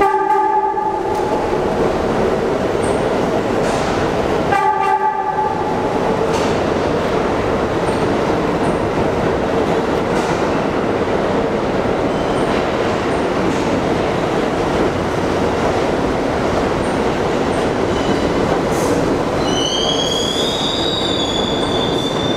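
An R62 New York City subway train runs along the platform with a steady rumble and clatter. Its horn sounds twice, once at the start and again about four and a half seconds later. Near the end, a high wheel squeal comes in.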